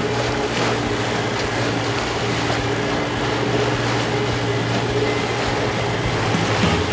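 Outboard motor on an aluminium boat running steadily at speed, a constant hum, with water rushing and spraying off the hull and transom.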